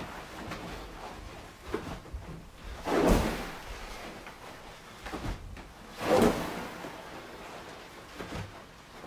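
Catcher in shin guards and gear dropping to his knees on carpet in side-to-side blocking drills: a thud with a brushing rustle of padding, heaviest about three seconds in and again about six seconds in, with lighter shuffles between.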